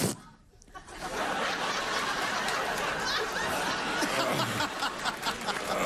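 A short sharp sound at the very start, then a studio audience laughing steadily.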